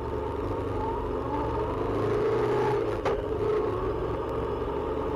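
Motorcycle engine running while riding along a road, steady with its pitch rising a little about a second in; a single sharp click about three seconds in.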